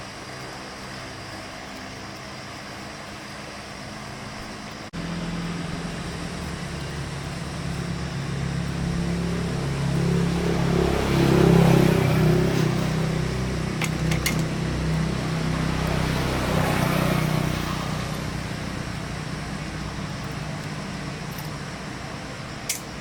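The small generator engine running steadily. About five seconds in the sound jumps louder, swells to a peak in the middle and eases off again, with a couple of short clicks later on.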